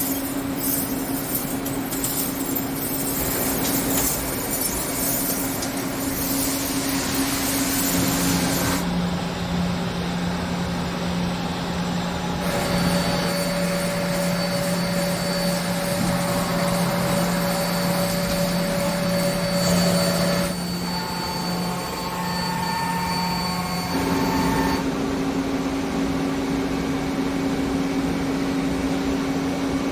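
Machine-shop machinery running with a steady hum whose pitch changes abruptly several times, with a harsh high hiss over the first several seconds.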